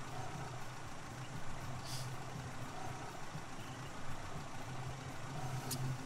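Steady low engine and road hum heard from inside a moving car's cabin.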